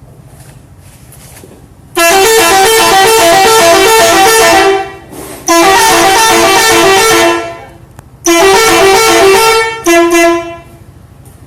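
Telolet horn on a box truck playing its multi-note jingle in four loud bursts, starting about two seconds in. Each burst quickly alternates between a few notes; the last one is short.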